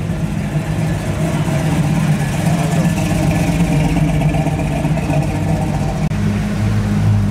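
1969 Chevrolet Camaro SS V8 rumbling at low speed as it drives slowly past, growing louder. About six seconds in, a deeper, louder engine note from the next car takes over.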